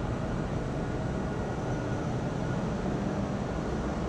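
Steady drone of machinery in a tanker's engine room, a dense even noise heaviest in the deep range with faint steady hum tones.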